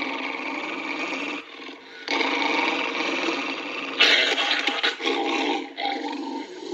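Small dog snarling and growling in sustained stretches of one to two seconds, with short breaks between them.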